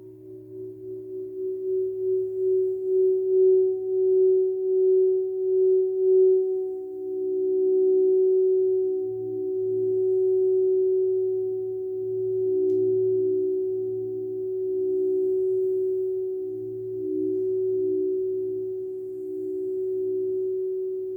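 Crystal singing bowl sounding a sustained, pure tone that swells in over the first few seconds. Its wavering pulse is quick at first, then slows to a gentle swell every two to three seconds.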